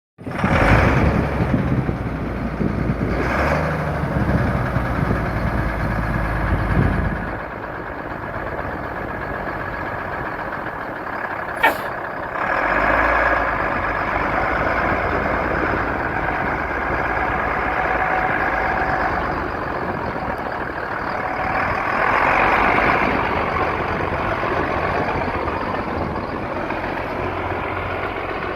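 A 1988 International garbage truck running: a heavy low rumble for the first seven seconds or so, then settling to a steadier, lower running sound. There is one short, sharp burst about twelve seconds in.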